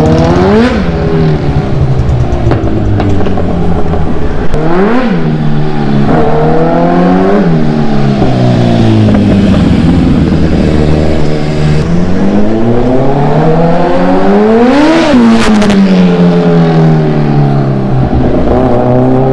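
Kawasaki Z900's inline-four engine running and revving as it is ridden: several quick blips of the throttle early on, then a longer climb to a high rev about fifteen seconds in that falls back to a steady run.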